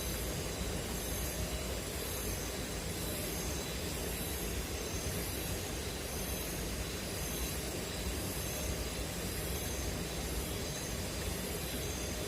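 Steady rushing of river water, with a faint high-pitched chirping of forest insects pulsing about one and a half times a second over it.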